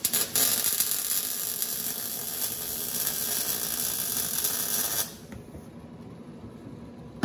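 MIG welder arc sizzling steadily as a steel roll cage tube is welded into the car body. It catches after a couple of short stuttering starts and cuts off about five seconds in.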